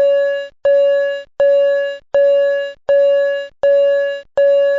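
An electronic alert tone of the kind that comes before a school intercom announcement: the same single note struck again and again, about every three-quarters of a second. Each note starts sharply and fades away.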